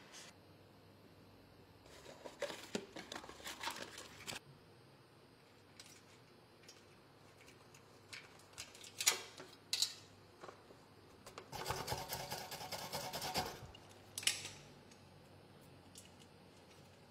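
Intermittent rubbing and crinkling as a rubber tyre repair patch is handled and pressed by hand onto the cemented inner liner of a tyre, in a few short bouts of a second or two with sharper crinkles in the middle.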